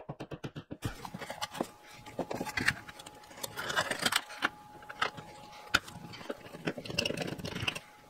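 A fast, even rattle of taps for the first second, stopping suddenly. Then irregular plastic clicks, scrapes and taps as the thermostat's plastic trim plate and backplate are pressed to the wall and a hand screwdriver drives the mounting screws.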